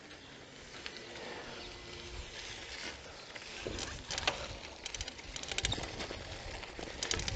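Bicycle rattling and clicking as it rides over a bumpy dirt road, with a low rumble of wind and tyre noise; the rattles come in short clusters in the second half, as the bike hits rough patches.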